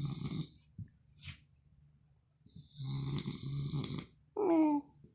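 A sleeping man snoring: two long rasping snores with a low buzz, one fading out just after the start and another about two and a half seconds in. Near the end comes a short, loud, pitched sound whose pitch falls.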